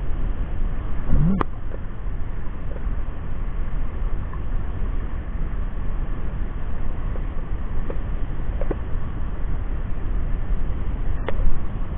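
Steady low rumble of wind buffeting the microphone over open sea water, with a brief rising sound about a second in.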